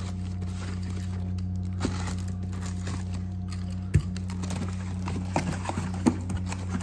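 Utility knife slitting packing tape on a cardboard shipping case, with scraping and crinkling. A single sharp knock about four seconds in as the knife is set down on the table, then cardboard flaps rustling and clicking open. A steady low hum runs underneath.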